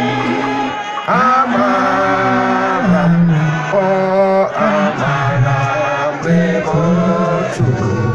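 Chant-like singing with music, the voices holding notes for about a second each before moving to the next.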